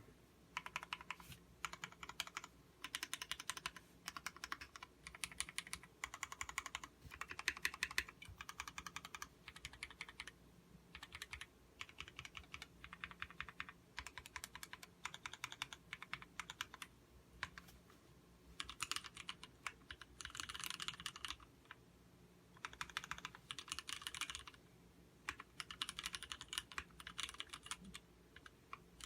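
Typing on a Duck Viper V2 mechanical keyboard with vintage Cherry MX Black linear switches: fast runs of key clacks in bursts, with short pauses between them.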